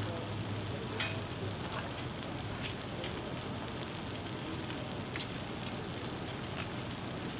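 Burning brush: a steady hiss of fire with scattered sharp crackles and pops, the loudest about a second in.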